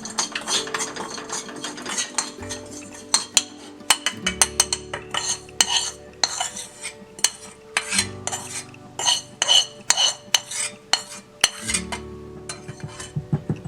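Dry-roasted cloves and ajwain seeds being crushed into powder with a pestle in a mortar: irregular clinking and tapping strikes, several a second.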